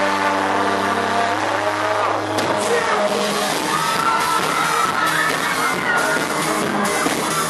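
Live pop band music at a concert: a held synth chord for about two seconds, then the music changes and goes on busier, with the crowd cheering and screaming over it.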